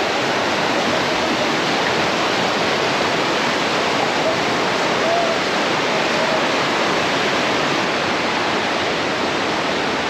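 Steady, loud rush of flowing water from a monsoon stream or waterfall, an even roar with no breaks.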